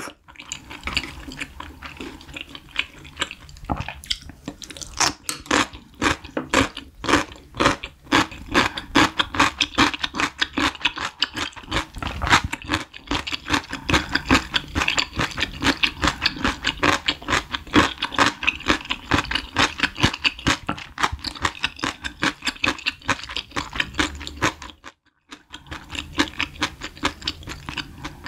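Close-miked chewing of a mouthful of 4-cheese Buldak stir-fried noodles: a fast run of small wet mouth clicks that stops briefly near the end.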